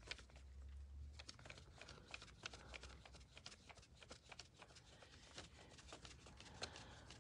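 Near silence: faint scattered light clicks and rustling from hands handling a paper notepad.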